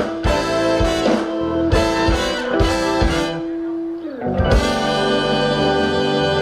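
Live band with horns and electric guitar playing, drums hitting over a held note for the first three seconds. About four seconds in, the pitch slides down, and the band moves to a sustained chord with no drum hits.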